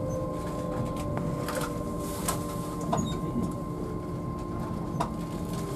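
Inside the carriage of a passenger train running on rails: a steady low rumble with a constant hum, and a few sharp clicks or knocks spread through it.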